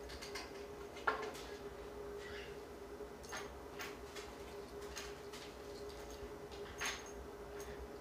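Scattered light clicks and taps of a blue-throated macaw's beak and feet on a wire crate, the sharpest about a second in and another near seven seconds, over a faint steady hum.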